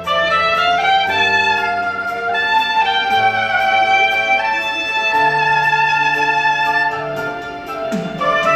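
Soprano saxophone playing a slow melody of long held notes over sustained low accompaniment notes.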